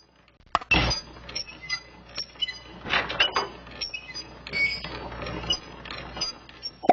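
Irregular clanks and clinks of hard objects with creaks, several sharp knocks with brief ringing.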